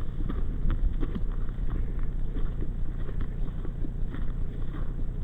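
Wind rumbling on the microphone, with faint irregular ticks through it.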